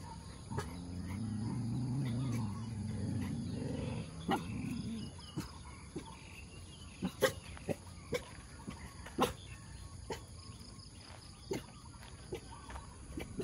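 A dog gives a low, wavering growl for about four seconds near the start, followed by a dozen or so short sharp sounds scattered through the rest, over a faint steady insect hiss.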